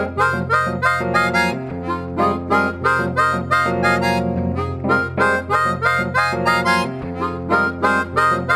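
Chromatic harmonica playing a quick melody of short, detached notes over sustained low notes.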